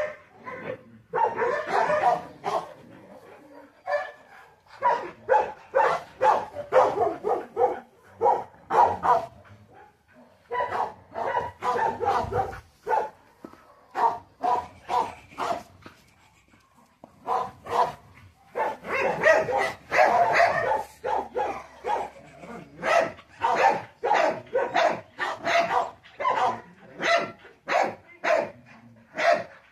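A young dog barking over and over in quick runs of short barks, with a few brief pauses between the runs.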